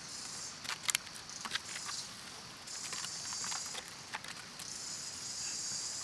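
High insect buzzing, like cicadas or crickets, that swells and fades in waves, with a run of sharp short clicks or chirps in the first few seconds.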